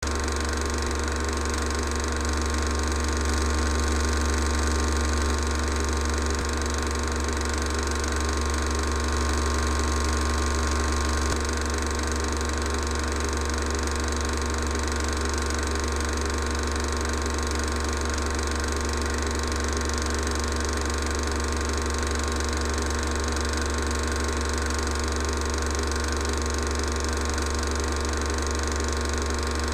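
16mm film projector running: a steady mechanical whirr over a strong low hum, unchanged throughout.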